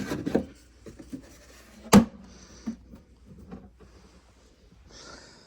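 Rustling and handling noises, with one sharp knock about two seconds in and a short hiss near the end.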